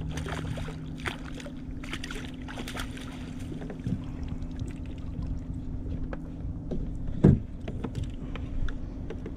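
Scattered taps and knocks of handling on a kayak, with one louder knock about seven seconds in, over a steady low hum.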